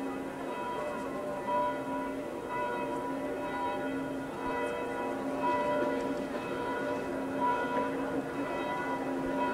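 Church bells of the Capuchin Church and the Augustinian Church ringing together, several bells overlapping in a continuous peal.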